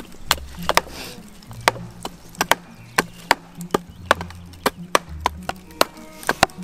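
Hatchet chopping and splitting small pieces of wood on a chopping block, mixed with a wooden mallet knocking a knife down into a log. The result is an irregular run of sharp wooden knocks, about three a second.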